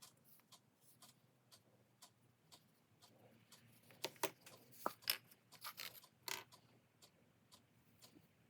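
Faint, regular ticking, about three ticks a second, with a cluster of louder sharp clicks and knocks between about four and six and a half seconds in as small hard objects are handled and set down.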